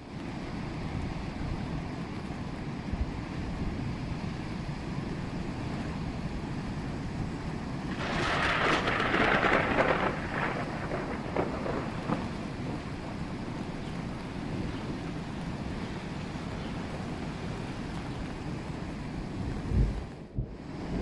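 Storm sounds: a steady rush of stormy sea and wind with thunder mixed in, as waves pound a harbour breakwater. About eight seconds in a louder crash surges for two seconds, trailing off in crackling.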